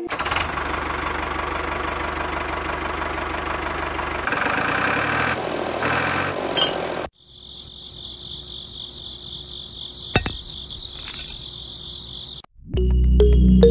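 Small electric toy motors of a homemade model tractor running steadily with a dense whirring hum, driving a belt to a miniature mill. After about seven seconds the sound cuts to a steady, quieter high-pitched trill. Music starts near the end.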